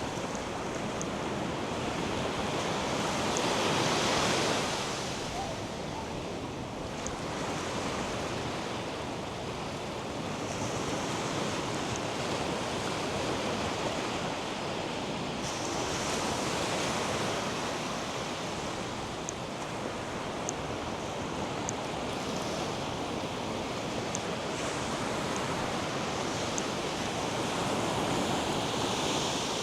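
North Sea surf breaking and washing up a sandy beach, a steady rush that swells with a breaking wave every several seconds.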